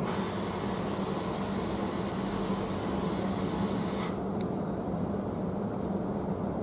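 Steady running noise inside a moving passenger train carriage, a low hum under a hiss; the hiss cuts off suddenly about four seconds in, leaving the hum.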